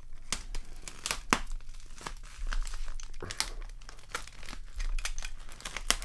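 Plastic mailer bag crinkling and tearing as it is handled and slit open with a utility knife, in a run of irregular crackles.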